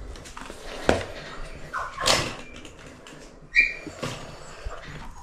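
Close handling noises as safety gear comes off and the camera is moved: a sharp click, a short rush of rustling, then a knock with a brief squeak about three and a half seconds in.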